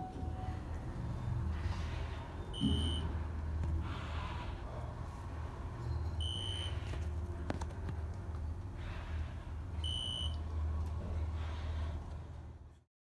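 Elevator car descending: a steady low hum of the moving car, with a short high beep each time it passes a floor, three beeps about three and a half seconds apart. The sound cuts off suddenly near the end.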